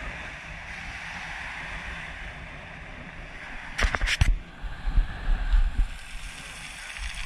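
Small waves breaking and washing over a pebble shore, a steady hiss of surf. A little past the middle come a few sharp clicks, followed by some low rumbling bumps.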